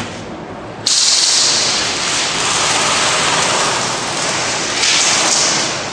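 A loud, steady hiss that starts suddenly about a second in and keeps going.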